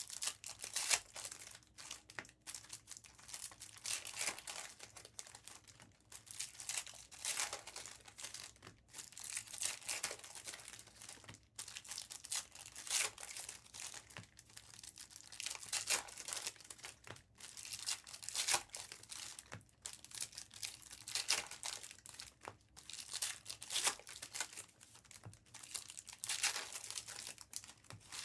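Trading-card pack wrappers from Bowman basketball hobby packs crinkling and tearing as the packs are ripped open and handled. The sound comes in irregular bursts every second or two.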